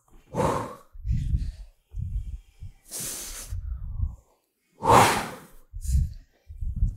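A woman breathing hard from exertion during weighted lunges: three strong exhales about two seconds apart, with low dull thumps of movement between them.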